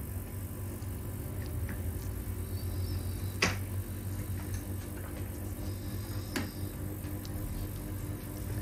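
A steady low hum, with two sharp clicks: one about three and a half seconds in, the other about three seconds later.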